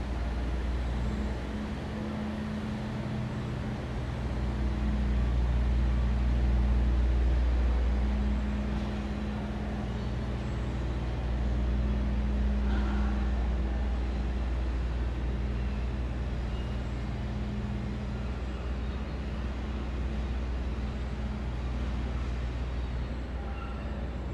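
Low engine rumble and hum of motor traffic, with a steady drone that swells louder twice.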